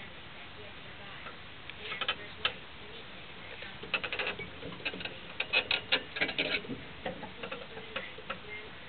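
A kelpie running on an exercise wheel, making irregular clicking and tapping sounds that come in quick clusters, thickest in the middle.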